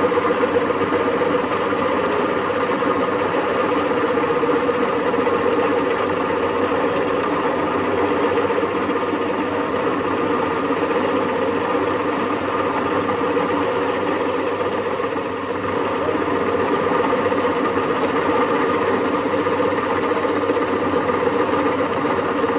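Bench milling machine running steadily as a boring head bores out a half-inch steel crankshaft web in 20-thou cuts: an even motor and gear hum with several steady tones.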